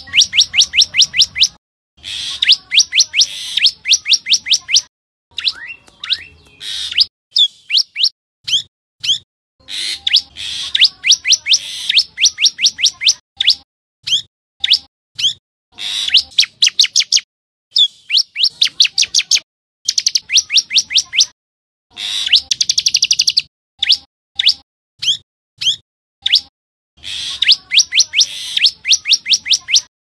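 Common tailorbird singing: rapid strings of sharp, high chirps, about seven a second, in bursts of one to two seconds with short pauses between. One burst about two-thirds of the way through is much faster, almost a trill.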